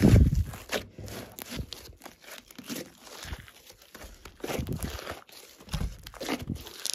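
Hands squeezing and stretching a large lump of glossy slime: irregular wet squelches and clicks, the loudest a deep squelch at the very start.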